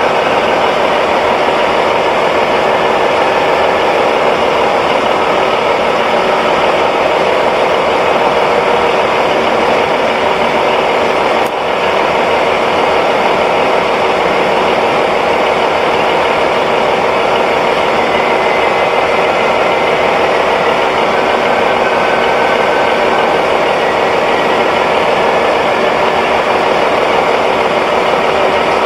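Diesel engine of an HB-E300 series hybrid railcar running steadily: a constant engine drone with a steady hum.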